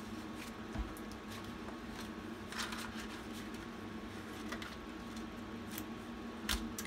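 Paper banknotes and clear plastic zipper pouches rustling and crinkling as cash is handled and slipped into the pouches, with two soft knocks, about a second in and near the end, over a steady faint hum.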